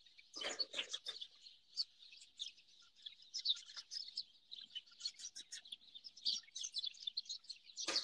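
Many small songbirds chirping rapidly and continuously, a busy overlapping chatter of short high calls. The birds are scolding at a person near their feeders, as she takes it.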